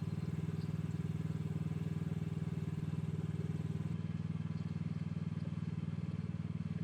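Mini excavator's diesel engine idling steadily, a constant low hum with a fast, even pulse.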